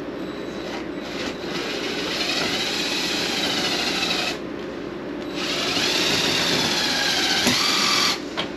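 Cordless drill running under load in two runs of about three seconds each, its motor whine wavering in pitch as it bites.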